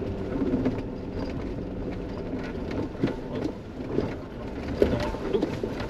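Jeep Wrangler crawling over a rough, rutted dirt road, heard from inside the cabin: a steady low engine hum with a few knocks and rattles from the body and suspension over bumps, the sharpest one near the end.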